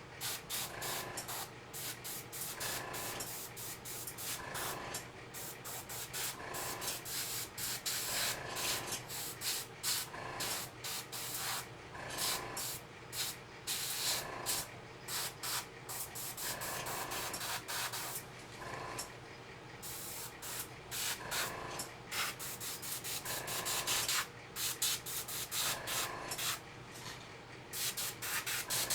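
Airbrush blowing air in many short, irregular bursts of hiss, used to push alcohol ink across wet epoxy resin. A faint steady hum runs underneath.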